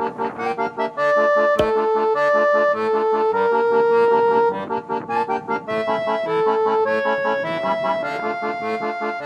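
Background music: a sustained melody over steadily repeating chords, with one sharp click about a second and a half in.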